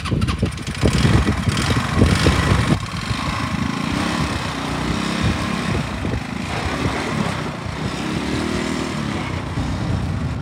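Small dune buggy's engine running as it is driven, its pitch rising and falling a few times.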